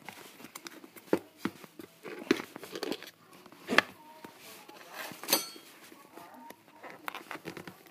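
Fingers handling a small cardboard candy box: irregular scrapes, taps and crinkles of the cardboard, with a few sharper snaps about one, two, four and five seconds in.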